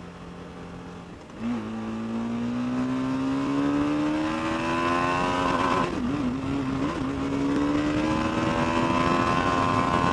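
TVS Apache RR 310's single-cylinder engine pulling under throttle. About a second and a half in the engine note jumps louder, then climbs slowly in pitch, with a brief dip and wobble near the middle before it climbs again.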